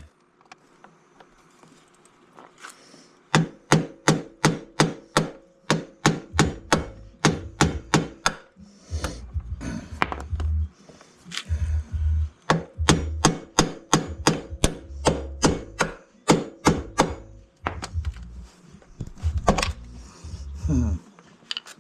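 Hammer striking a chisel in a run of sharp metal blows, about three a second, with short pauses between groups, knocking apart a link of a motorcycle drive chain to remove the chain.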